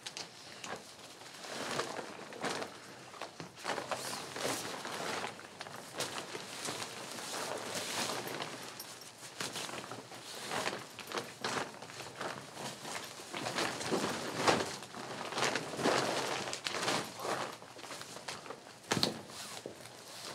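Nylon fabric of a Coleman dome tent rustling and swishing in irregular bursts as it is handled and pulled over its poles during pitching, with a sharp click near the end.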